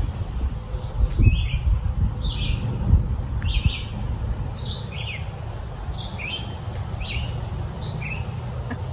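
A songbird calling over and over, short high chirps about once a second, with wind rumbling on the microphone underneath.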